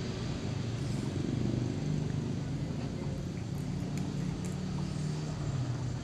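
Motorcycle engine running steadily while riding along a road, a low even hum.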